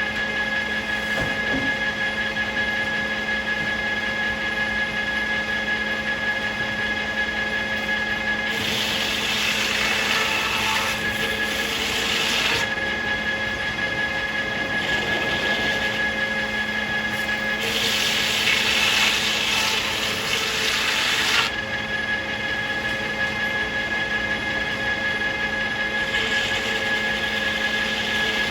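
Circular sawmill running with a steady whine, its blade biting into a box elder (Manitoba maple) log. There are two main cuts, about 9 s and 18 s in, each lasting around four seconds, with lighter blade contact around 15 s and near the end.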